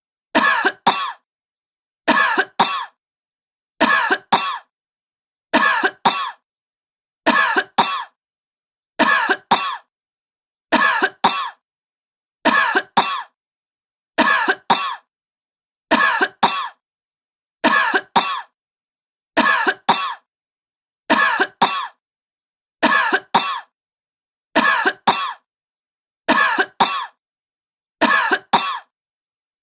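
A sick woman coughing: a double cough, two harsh barks close together, repeated at an even pace about every second and a half to two seconds, with dead silence between each pair.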